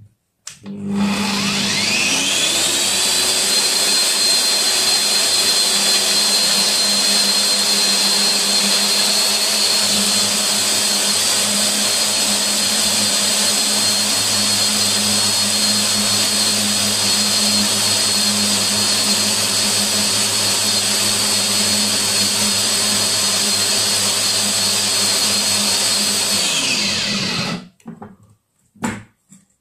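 Stromo Professional angle grinder rigged as a powdered-sugar mill, grinding sugar in a pan under a lid. It is switched on about a second in and its whine rises over a couple of seconds to a steady high pitch. It runs at full speed, then is switched off near the end and winds down.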